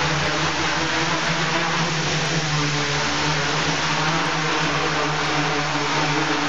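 Homebuilt quadcopter's four brushless motors and propellers whirring steadily as it hovers, a constant buzzing drone with a low hum.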